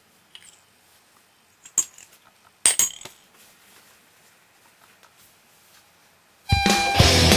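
A few light clinks of a metal spoon and a ceramic espresso cup on its saucer, the loudest about three seconds in, with quiet between. Near the end, loud rock music with distorted guitar starts.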